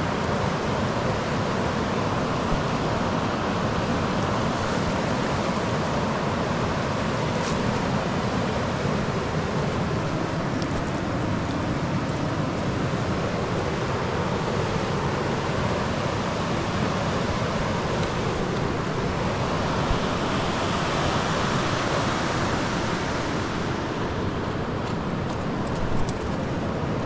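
Fast-flowing mountain river rushing steadily, a continuous wash of water noise.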